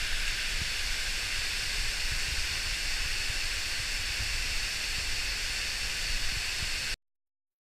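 Floodwater overflowing a stone masonry dam after heavy rain, falling down the full face of the spillway: a steady, heavy rushing hiss with a low uneven rumble beneath. It cuts off abruptly near the end.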